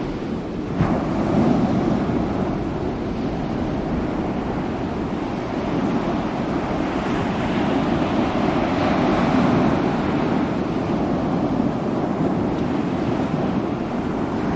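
Ocean waves breaking and washing on the shore, a continuous surf rush that swells and eases every few seconds, with wind buffeting the microphone.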